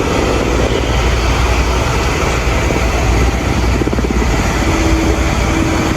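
Firefighting aircraft flying over the fire: a steady low drone with a noisy rumble, and a faint steady hum about a second before the end.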